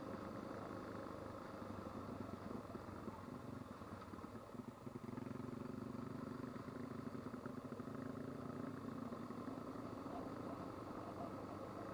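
Motorcycle engine running steadily at low speed on a dirt track, heard from a camera mounted on the bike. It dips a little about four to five seconds in, then picks up again.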